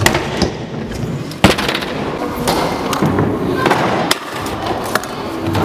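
Freestyle scooter wheels rolling over wooden ramps and a hard floor, broken by several sharp clacks of the scooter landing and striking a ledge, the loudest about a second and a half in.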